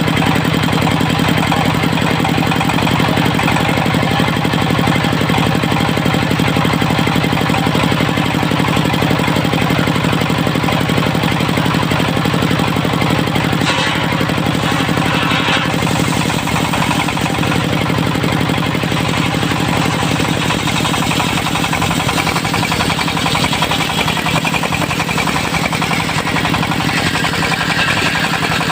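Diesel engine of a mobile circular sawmill running steadily, with a fast, even firing beat.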